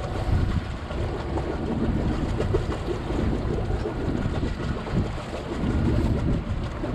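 Strong wind buffeting the microphone aboard a sailboat at sea, a steady low rumble that flutters in strength, with wave and water noise beneath it.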